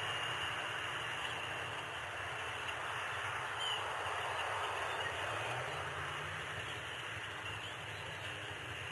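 Steady outdoor background noise, a low hum under a broad hiss, with one faint short chirp a few seconds in.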